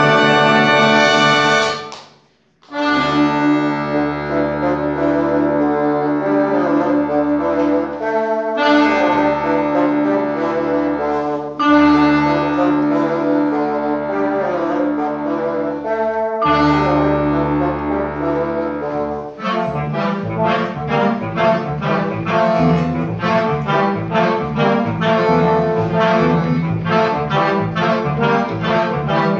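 Instrumental music played live: held, full chords broken by short pauses, changing about two-thirds of the way through to short, detached notes in a quick rhythm.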